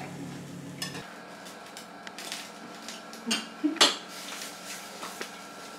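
Cutlery and dishes clinking: a handful of separate knocks and clinks, the loudest about four seconds in. A low steady hum stops abruptly about a second in.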